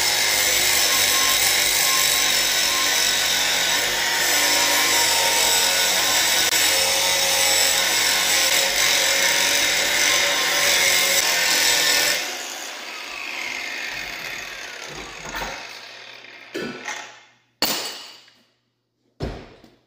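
Angle grinder cutting through a metal bar, running steadily under load with a high whine. About twelve seconds in it is let off and spins down with a falling whine, followed by a few short knocks.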